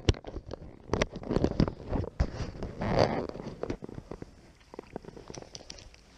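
Close handling noise on a body-worn action camera: clothing rustling and rubbing against the microphone with a string of sharp knocks, a longer scraping rustle about three seconds in, growing quieter over the last couple of seconds as a fishing rod is picked up.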